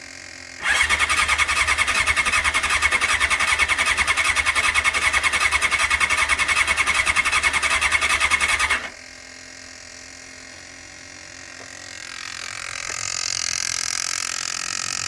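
1989 Honda CBR600's inline-four engine being cranked over by the electric starter on choke for about eight seconds, a fast even chugging that stops abruptly without the engine catching. It does not fire because the fuel tap is not properly on. A fainter hiss rises near the end.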